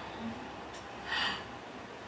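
A person's short, sharp breath through the nose, once about a second in.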